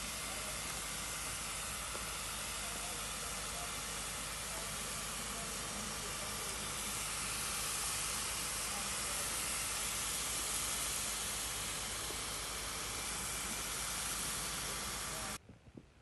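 Steady, even hiss with a faint low hum underneath, which cuts off abruptly near the end.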